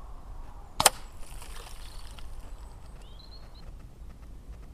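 A single shot from a Weihrauch HW97K spring-piston air rifle a little under a second in, one sharp crack. A short bird chirp follows about two seconds later.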